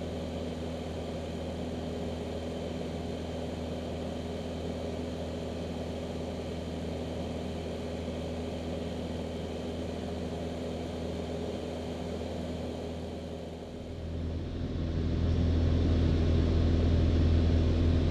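Steady drone of a Van's RV light aircraft's piston engine and propeller in flight, heard from a camera mounted on the aircraft. About fourteen seconds in it grows louder and deeper and stays that way.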